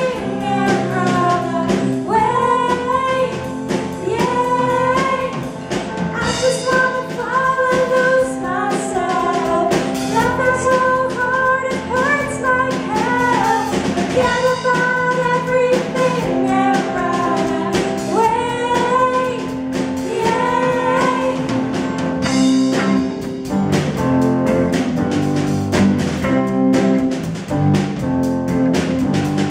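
Live pop-rock band: young female vocals singing a melody over keyboard, drum kit and electric guitars.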